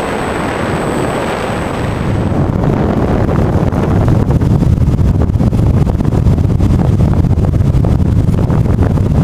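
Wind rushing over the onboard camera microphone of a brushless FunJet foam RC plane in flight, a steady rumbling noise. A thin high whine from the motor fades out about two seconds in.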